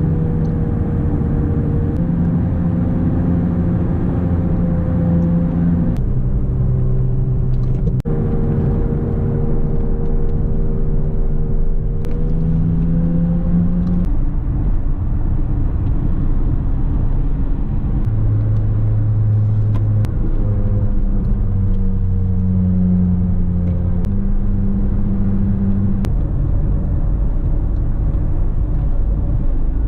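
Škoda Octavia (first generation) driving: its engine running under a steady low rumble of tyres on the road, the engine note stepping up and down as the speed changes.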